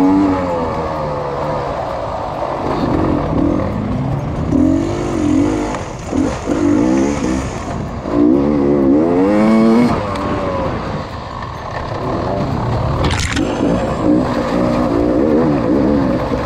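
Dirt bike engine revving up and falling back over and over as the throttle is worked, with one sharp knock about 13 seconds in.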